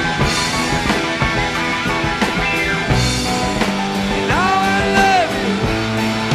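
Blues-rock band playing live, led by an electric guitar solo: quick runs of notes, then a little over four seconds in a note bent up and held for about a second before it falls away.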